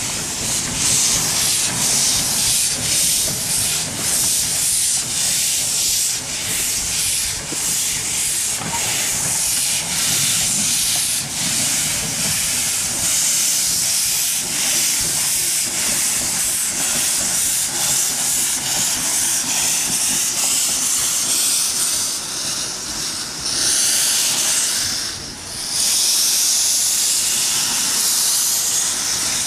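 Small narrow-gauge steam locomotive letting off steam in a loud, steady hiss. The hiss pulses faintly in the first half and drops briefly near the end before coming back loud.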